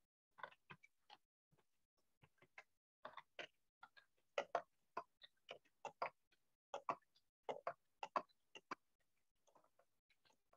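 Irregular runs of short, sharp clicks of a computer keyboard being typed on.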